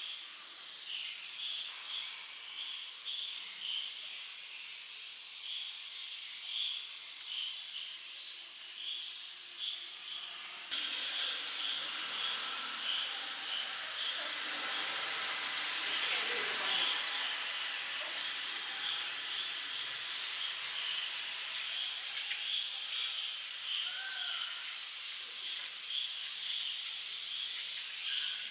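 Evening insects, likely crickets, chirping in a steady rhythm of about one and a half chirps a second. About ten seconds in, a loud even hiss starts suddenly and carries on under the chirping.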